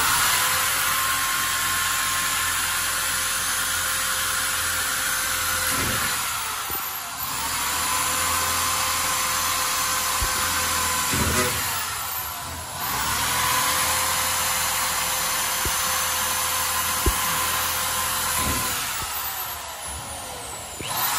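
High-powered electric drill with a cobalt bit drilling rivet holes through sheet metal. The motor runs steadily, winding down and back up about three times between holes.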